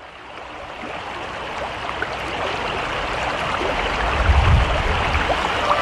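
Rushing river water fading in and growing steadily louder, with a low rumble about four seconds in.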